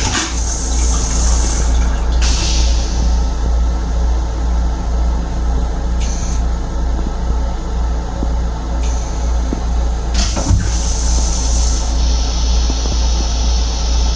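M7 railcar toilet flushing into its stainless-steel bowl, starting with a sudden burst and a second short burst about ten seconds in, over the railcar's steady low rumble.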